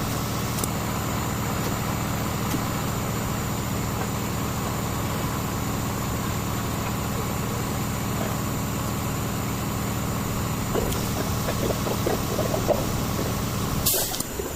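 Car engine idling steadily, a low even hum, with a few light clicks over the last few seconds and a short burst of noise near the end.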